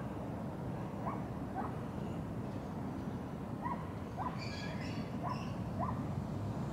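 Birds calling: a string of short rising chirps, with a brief higher twitter about midway through, over a steady low outdoor rumble.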